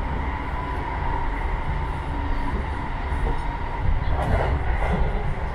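Electric commuter train on the JR Tokaido Line running along the track, heard from inside the passenger car: a steady low rumble of wheels on rail with a faint steady whine, briefly louder about four seconds in.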